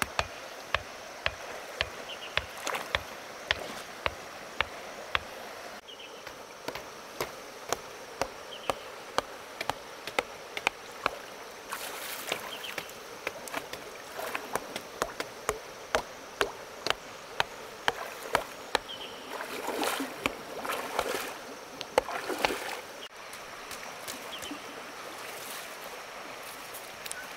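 Rapid, irregular sharp knocks, a few a second, over a steady rush of running water. A couple of louder noisy stretches come about twelve seconds in and again around twenty seconds in.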